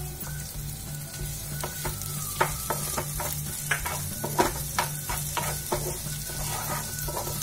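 Chopped onions with garlic, ginger and green chillies sizzling in hot oil in a nonstick frying pan while being sautéed. A plastic spatula stirs them, with a run of quick taps and scrapes against the pan in the middle stretch.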